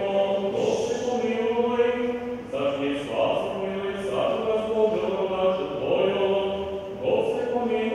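Liturgical chanting at a christening service: voices sing a slow chant of long held notes that shift in pitch every second or so.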